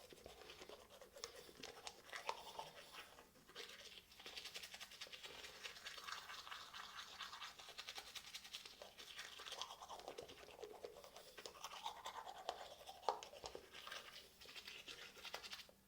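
Manual toothbrush scrubbing teeth: rapid back-and-forth brushing strokes, with a brief pause about three and a half seconds in, ending abruptly.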